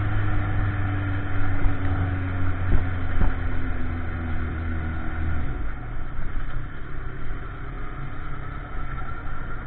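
Motorcycle engine running at speed, its note slowly falling as the throttle eases, over steady road and wind noise. The engine tone drops away about five and a half seconds in, leaving mostly road and wind noise.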